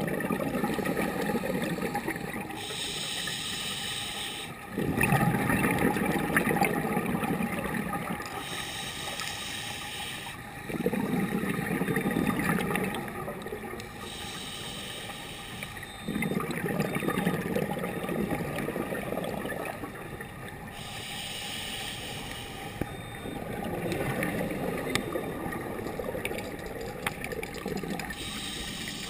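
Scuba diver breathing through a regulator underwater: a short hissing inhale, then a longer rush of bubbling exhaust, repeating about every five to six seconds for about five breaths.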